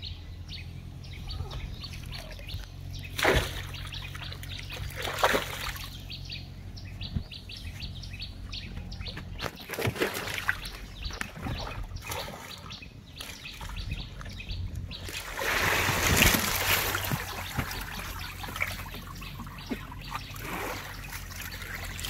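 Cast net being hauled out of the water over the side of a wooden boat: water splashing and dripping off the mesh in repeated bursts. A longer, louder rush of water pours off it about fifteen to seventeen seconds in, as the net comes aboard with its catch of large fish.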